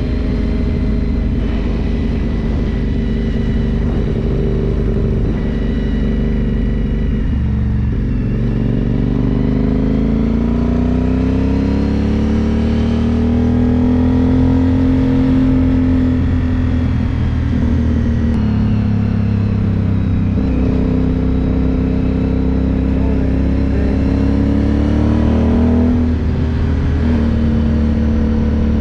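Aprilia Dorsoduro 750's V-twin engine heard from the rider's seat under way. The engine note dips about a quarter of the way in, climbs steadily as the bike accelerates to a high point around halfway, holds at a cruise, then eases off a little near the end, over a steady rush of wind.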